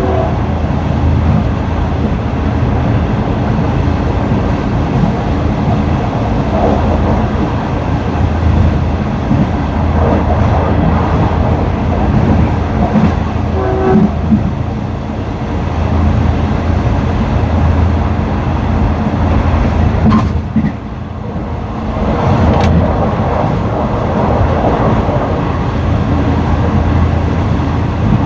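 Train running along the track: a loud, steady rumble of wheels on rails that swells and eases, dipping briefly about two-thirds of the way through.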